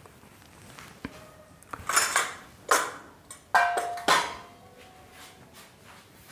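A steel spoon clinking and knocking against a stainless steel mixing bowl, about five separate clinks in the middle of the stretch, one leaving a short metallic ring.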